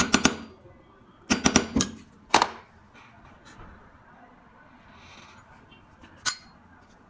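Sharp metallic taps and clicks on a windproof lighter's case and hinge: a quick run of three or four at the start, another about a second and a half in, then single ones about two and a half and six seconds in. They come as the protruding hinge is being set back into the case.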